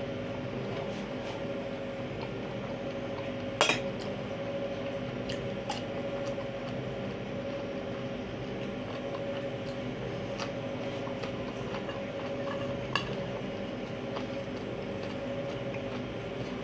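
Metal spoon clinking and scraping against a ceramic bowl a few times, the loudest clink about four seconds in, over a steady background hum.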